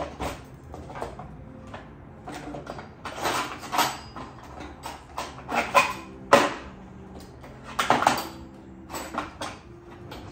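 Kitchen clatter: a cupboard door and dishes being handled, a run of irregular knocks and clinks, the loudest about a third of the way in, past the middle, and near the end.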